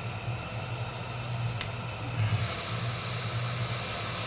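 Hot-air blower running steadily, a fan hum with an even rush of air, with a small tick about one and a half seconds in.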